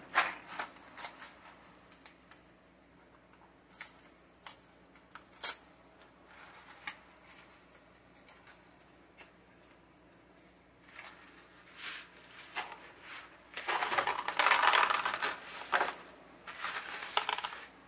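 A cardboard box of dry spaghetti being handled: scattered light taps and clicks, then about three seconds of loud rustling and crinkling near the end as the box is pulled open.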